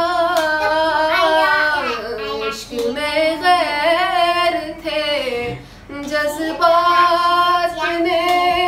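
A woman singing a slow song in long, wavering held notes, with a brief pause about five and a half seconds in.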